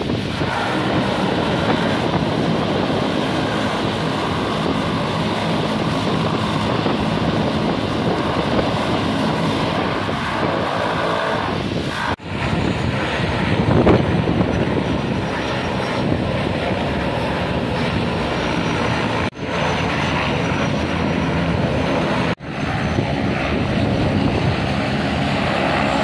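The turboprop engines of a de Havilland Canada DHC-6 Twin Otter floatplane running as it taxis on the water, a steady propeller drone with a faint high whine. It gets louder around halfway and breaks off for an instant three times.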